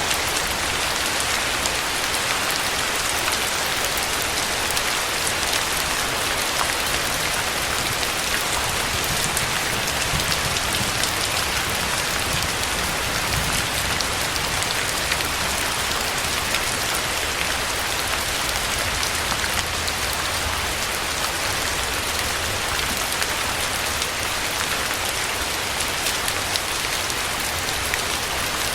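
Steady rain falling: a dense, even hiss with many fine drop ticks and no let-up.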